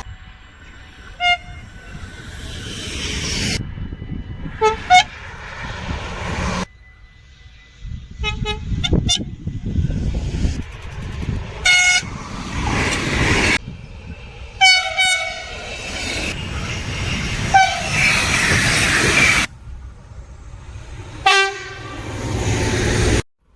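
Train horns giving short toots, about seven blasts with some in quick pairs, each over the rush of a passing train. The sound changes abruptly several times as one train cuts to the next.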